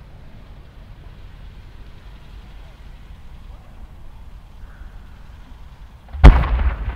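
Faint steady outdoor background hum, then about six seconds in a single loud boom followed by a long rolling rumble. This is the lift charge firing a 10-inch (No. 10) firework shell up out of its mortar.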